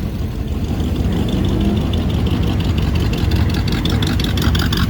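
Car engine idling close by, a steady low exhaust rumble with rapid even firing pulses that come through more clearly in the second half.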